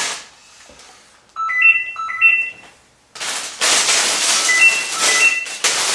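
A phone ringing in the background: a short rising electronic chime played twice in quick succession, the pair repeating a few seconds later. From about three seconds in it sits under loud crinkling and rustling of plastic bags of LEGO pieces being handled.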